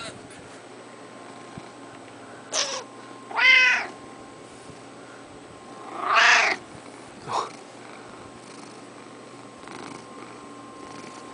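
Orange-and-white tabby cat meowing while being petted: two loud, drawn-out meows about three and a half and six seconds in, each with a shorter call just before or after it.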